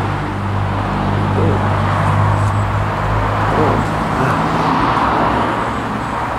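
A vehicle's engine runs with a steady low hum under a rushing noise that swells and fades every few seconds. The hum thins out about four seconds in.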